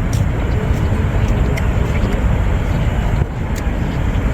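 Steady outdoor ambience of a rainy city street at night: a dense, even wash of rain and street noise, heaviest in the low end, with a few faint ticks.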